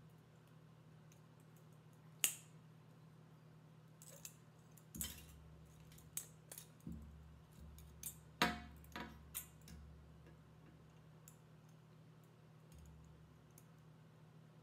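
Irregular small clicks and ticks of 18-gauge wire being coiled by hand around an agate slice, the wire tapping and scraping as it is pulled round; the sharpest clicks come about two seconds in and again a little past the middle, fading to occasional faint ticks near the end. A faint steady hum lies underneath.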